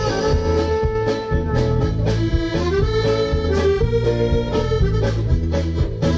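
Live dance-band music led by an accordion playing the melody, over a bass line and drums keeping a steady beat of about two hits a second.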